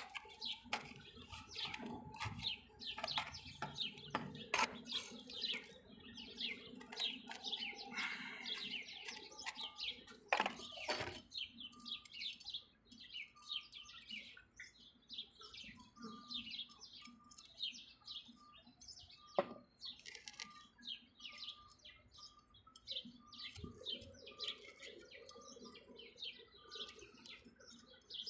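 Many small birds chirping continuously in rapid short calls. A few sharp knocks and scrapes from a hand trowel working soil into a small plastic plant pot, the loudest about ten seconds in.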